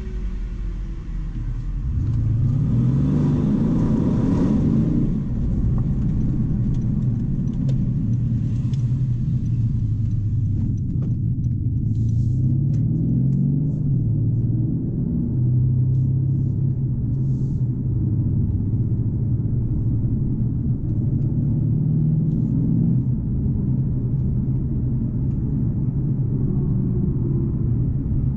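Mercedes S63 AMG Coupe's twin-turbo V8 heard from inside the cabin. It pulls away about two seconds in, its note rising as it accelerates, then climbs through the gears and settles into steady running at moderate speed, over road noise.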